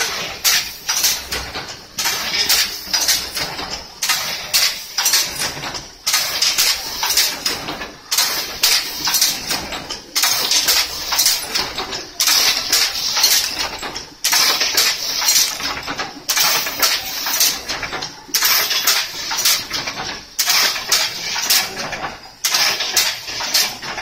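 Crimped wire mesh weaving machine running, a loud metallic clatter of rapid clicks and clanks that repeats in a cycle about every two seconds.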